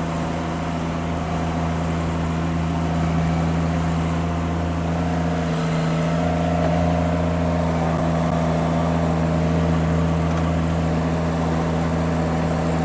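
Mini skid steer engine running steadily while the machine back-drags dirt with its bucket, its tone shifting slightly about halfway through.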